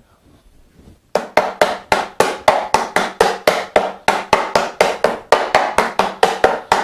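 A quick, even run of taps seating a hand-cut wooden dovetail joint, about four a second, starting about a second in.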